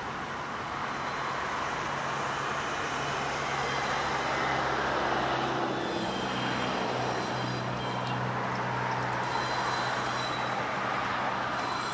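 Distant Alco 930 class diesel locomotive approaching, its engine a low steady drone under a wide hiss of wind and road noise. A thin high squeal comes in near the end as the train's wheels begin to squeal.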